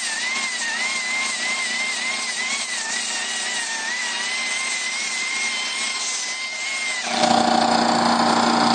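Small die grinder spinning a yellow abrasive disc against bare sheet metal, cleaning the metal around drilled holes before soldering. It gives a high whine that wavers as the disc bears on the metal. About seven seconds in the whine stops and a louder, lower, steady hum takes over.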